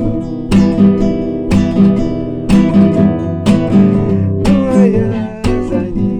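Acoustic guitar strummed in a steady rhythm, with a strong strum about once a second and ringing chords between.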